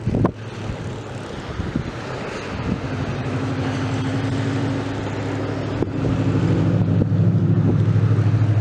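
A motor's steady, pulsing drone, growing louder in the second half, over the hiss of wind on the microphone.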